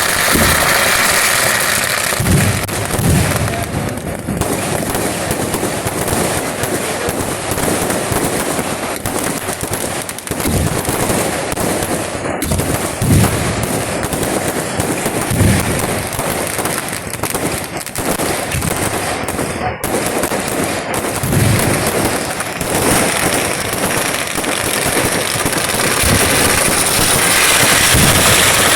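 Fireworks barrage: a dense, continuous rattle of rapid firecracker bangs, with heavier booms breaking through every few seconds.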